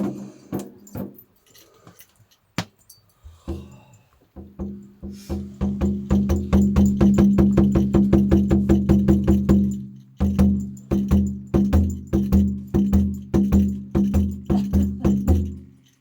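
Instrumental music: a plucked instrument over a steady low drone, played in fast, even, driving strokes. It starts with scattered clicks, builds up about four seconds in, breaks off briefly near ten seconds, then carries on and stops abruptly near the end.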